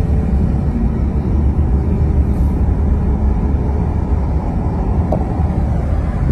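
Steady road noise inside a car cruising at freeway speed: a low, even rumble of tyres and engine.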